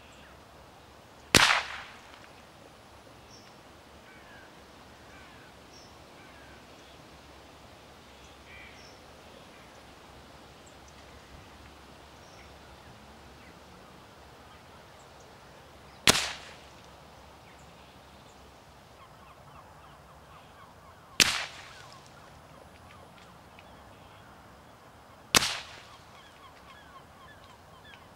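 Four suppressed .22 rimfire rifle shots with subsonic ammunition, heard from about 50 to 60 yards downrange: short sharp cracks with a brief fading tail, the first about a second in and the other three closer together in the second half.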